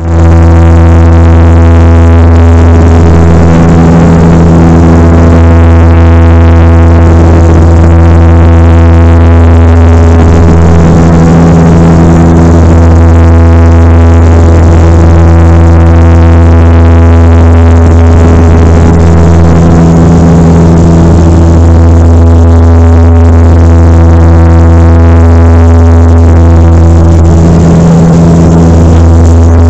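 Saab 340 turboprop's propellers and engines droning in flight, heard inside the cabin: a loud, steady low hum with a stack of higher tones above it. One of those tones swells and fades every several seconds.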